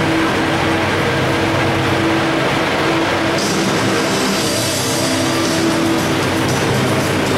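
Loud, distorted rock music over an arena's public-address system, heard as a steady din.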